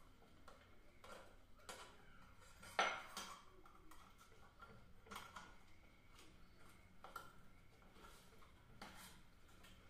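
Small clicks and clinks of hard plastic and metal as a contactor's contact bridges are fitted by hand into its plastic carrier, a few faint ticks with one sharper click about three seconds in.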